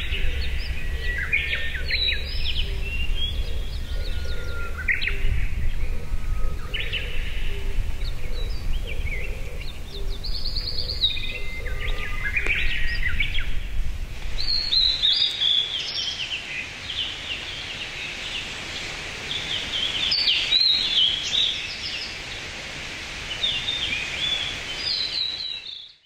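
Blue-and-white flycatcher singing: repeated short, sweeping warbled phrases, with a low rumble underneath during the first half. The sound fades out at the very end.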